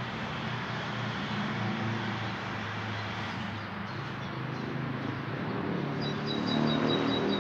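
A vehicle engine running steadily under street background noise, a little louder near the end. A small bird chirps rapidly over it in the last second or so.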